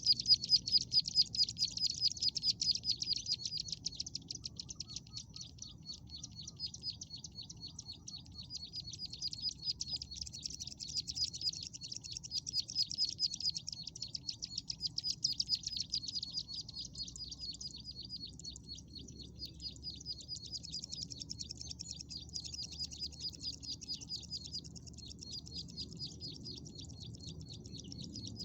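Ciblek sawah, a small prinia, calling in a fast, unbroken run of high chirps, loudest at the start and swelling and fading in waves, the call used to lure the bird.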